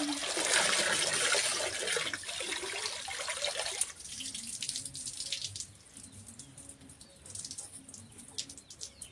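Water streaming off a soaked cloth lifted out of a plastic tub of washing water and splashing back into the tub. It is loud for about four seconds, then thins to scattered drips.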